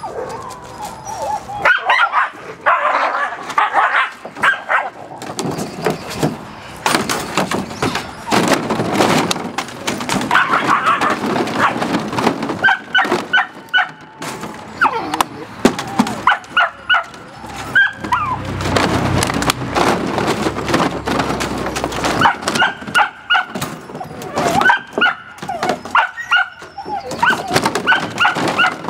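Dutch Shepherd puppies yipping and whimpering in short, repeated high calls, with frequent knocks and rattles between them.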